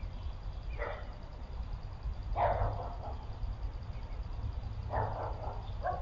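A dog barking about four times, spaced a second or two apart, with the loudest bark in the middle. A steady low rumble runs underneath.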